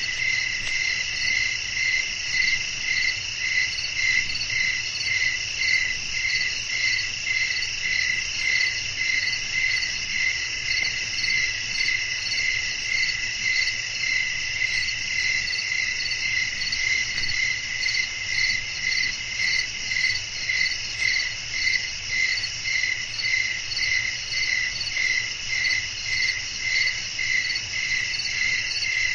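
Night chorus of crickets: a steady high trill, with one cricket chirping in a regular beat a little over once a second.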